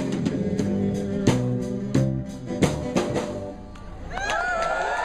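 Live band with drum kit and guitar playing the closing bars of a song, a run of sharp drum hits over held notes, dying away about three and a half seconds in. Voices start up near the end.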